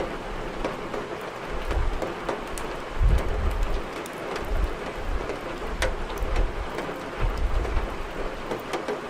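Steady rain, with the sharp pops and crackles of burning wood in a fireplace scattered through it and repeated low rumbles every second or two.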